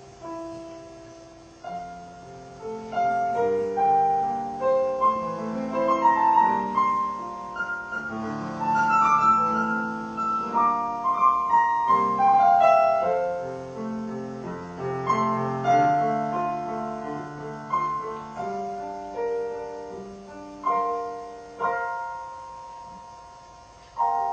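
Solo piano playing: a melody over chords, the notes struck and left to ring, growing full and busy after a few seconds and thinning to separate struck chords near the end.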